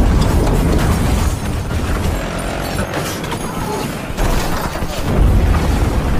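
Action-film soundtrack of explosions: heavy, dense booms and rumble that continue without a break, loudest about five seconds in.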